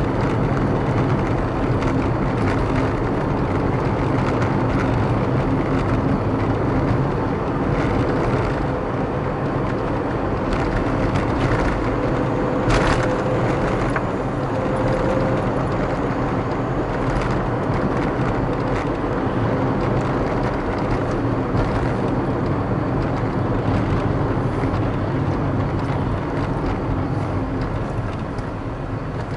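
Car driving along a city street: steady engine and tyre noise, with one sharp click or knock about halfway through.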